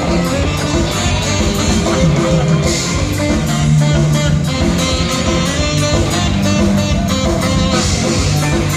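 Live ska band playing through a PA: electric guitar, bass guitar and drums with a steady beat.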